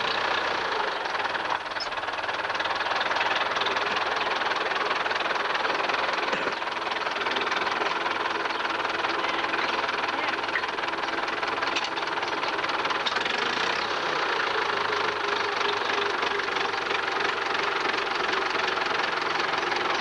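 Farm tractor engine running steadily at idle.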